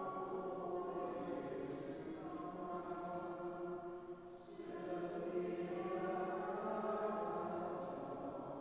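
A cantor and a small congregation singing a slow hymn, its final verse, in long held notes with brief breaks between phrases.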